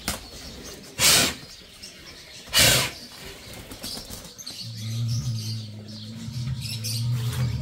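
A zoo bear gives two sharp, loud huffs about a second and a half apart, then from about halfway through makes a low steady hum, the sound of an agitated bear. Birds chirp faintly in the background.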